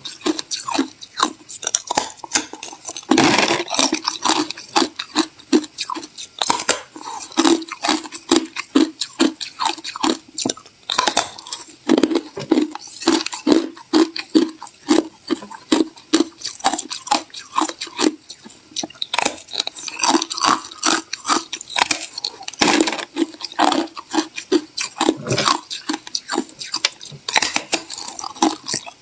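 A person chewing ice up close: a steady run of sharp, brittle crunches, a few a second, with occasional louder bites.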